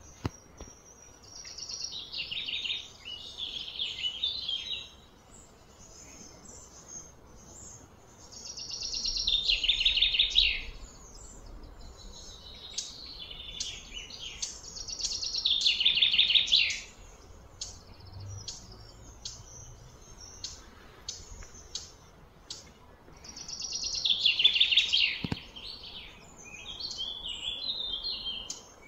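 A bird calling from the surrounding trees: about six high, trilling phrases, each a couple of seconds long, that swell and then stop sharply, with pauses between them.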